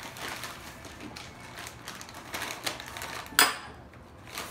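A small metal measuring cup scooping brown sugar from a plastic zip-top bag: the bag crinkling and the cup scraping and clicking in an irregular run, with one sharp knock about three and a half seconds in.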